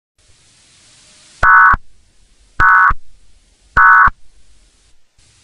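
Three short, loud bursts of Emergency Alert System digital data tones, the warbling screech of the end-of-message code, each a fraction of a second long and about a second apart, after a faint hiss.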